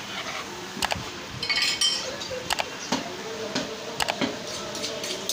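Butcher's steel knives clinking and knocking against each other as they are handled: a few sharp clicks, with a short metallic scrape and ring about a second and a half in.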